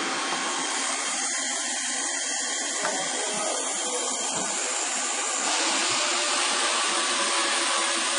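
CNC router running, a steady whirring noise that gets a little louder about five and a half seconds in.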